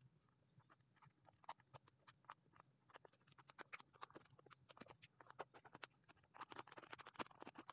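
Faint small clicks and rustling as a box cutter slits a plastic shipping mailer, then the plastic packaging crinkles as it is pulled open. The crinkling gets busier and louder near the end.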